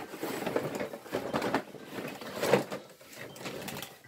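A cardboard toy box rustles and scrapes as it is handled and tipped upside down, while clear plastic track tubes slide out of it. The sound comes in a few irregular bursts, the loudest about two and a half seconds in.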